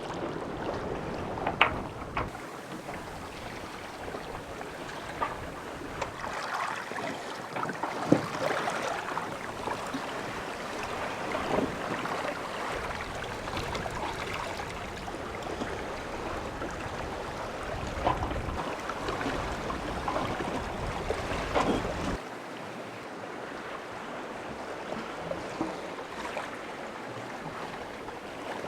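Sea water washing around a sailboat, with wind on the microphone and a few sharp knocks. The sound changes abruptly a few times.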